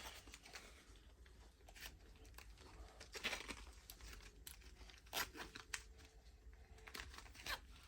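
Faint handling sounds of small plastic and paper doll accessories: scattered light clicks and brief crinkling rustles.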